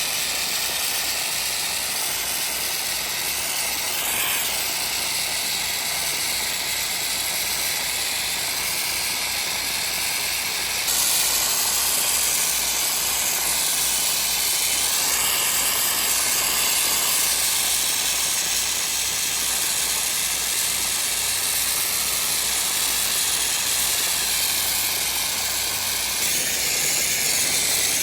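Pressure washer jet spraying water: a steady hiss that gets louder and brighter about eleven seconds in.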